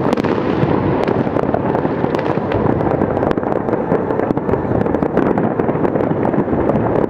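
Fireworks display in full barrage: aerial shells bursting and crackling without let-up, many overlapping bangs each second.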